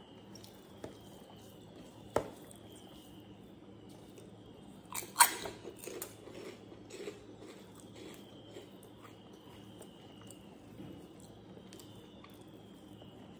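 Rice being mixed by hand on a steel plate: soft, sticky squishing with small clicks of fingers against the metal, and a sharp crackling crunch about five seconds in.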